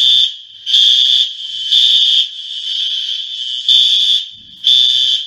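Building fire alarm sounding its evacuation signal: loud, high-pitched beeps in groups of three with a pause of about a second and a half between groups. A fainter alarm tone carries on between the beeps.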